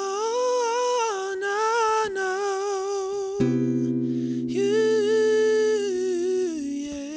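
Male voice singing long, wordless held notes with vibrato over strummed acoustic guitar chords. A new chord rings out about three and a half seconds in.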